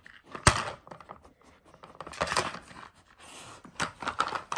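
Stacked plastic 'Dog Tornado' treat puzzle being pawed and pushed by a dog: its plastic layers clack, knock and scrape against each other and the floor. There is a sharp knock about half a second in, a longer rattling scrape around two seconds in and a few more clicks near the end.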